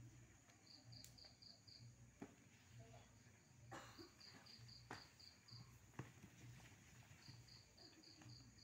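Faint chirping of a cricket: short trains of about six rapid pulses, repeating every two to three seconds, with a few faint knocks in between.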